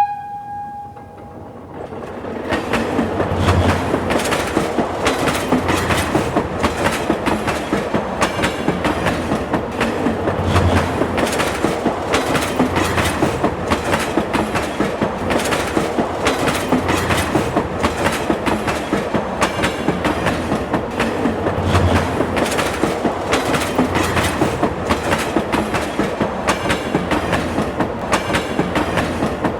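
Train running on the track with a steady, rapid clickety-clack of wheels over rail joints and a few low thumps, building up about two seconds in. A brief pitched tone sounds in the first second.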